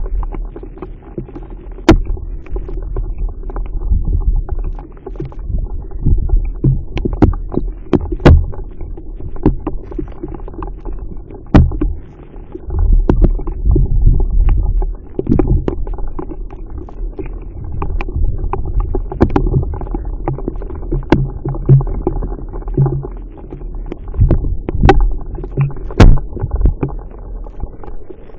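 Rain close to the microphone: irregular sharp taps of single drops striking near it, about one every second or two, over a steady low rumble.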